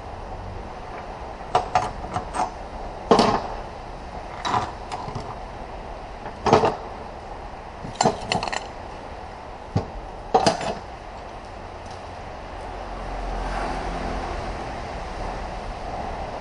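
Metal transmission parts being handled on a workbench: a series of sharp clinks and knocks, single or in quick pairs, over a steady background hum.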